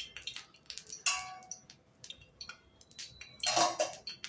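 Fish frying in a pan of hot oil: irregular crackling and popping, with a few short clinks and a louder burst about three and a half seconds in.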